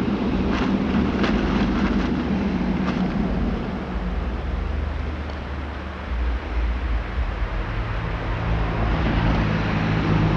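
A steady low engine rumble, with a few faint clicks in the first three seconds.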